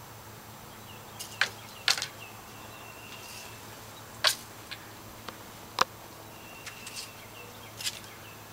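A handful of sharp clicks and taps a second or two apart, over a low steady hum, with a few faint brief high whistles.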